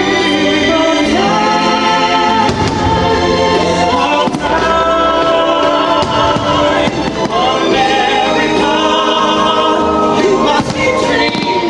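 Fireworks show soundtrack: a choir singing long held notes over orchestral music, with the bangs of firework shells going off now and then through it.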